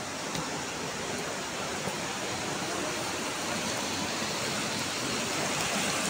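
Rushing mountain stream pouring over rocks, a steady hiss of water that grows louder near the end.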